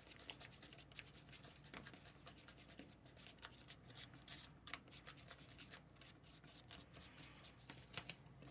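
Small plastic spoon stirring cheese powder and water into a paste in a plastic tray compartment: faint, rapid scraping and clicking of plastic on plastic.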